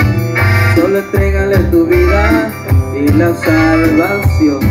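Live band music played loud through PA speakers: a pulsing bass under a melody line that slides up and down in pitch.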